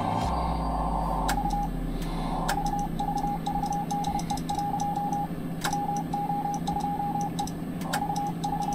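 Morse code (CW) sidetone from a ham radio transceiver: a single mid-pitched beep keyed in dots and dashes, in several runs with short pauses between, as the transmitter is keyed. A sharp click starts each run, and a steady low hum sits underneath.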